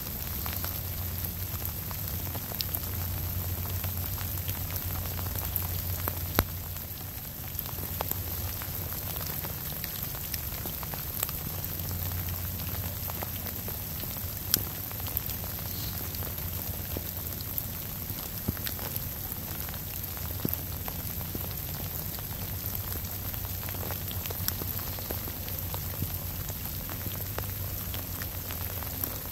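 Steady rain falling, with scattered sharp drops ticking close by and a low rumble underneath.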